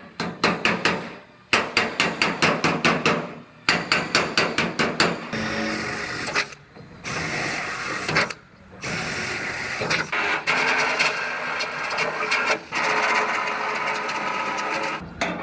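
Sheet-metal work on a pickup's steel bedside: a run of rapid strikes, about five or six a second with short breaks, then a power tool grinding steadily on the metal, stopping briefly twice.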